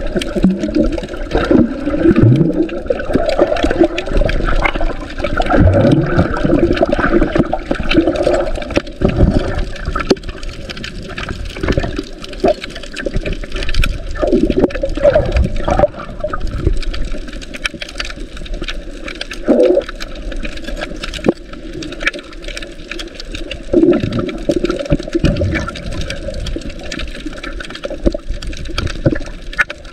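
Muffled sloshing and gurgling of water recorded underwater as the swimmer moves, swelling and fading unevenly, with several short falling swooshes.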